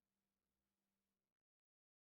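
Near silence: a gap between music tracks.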